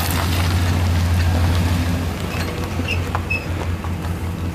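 The 1995 Chevrolet K2500's 5.7-litre V8 idling with a steady low hum, a few light clicks over it.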